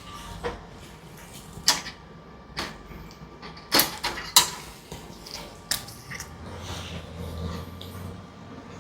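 A few scattered sharp clicks and taps, with a quick cluster of three about four seconds in, over a faint steady hum.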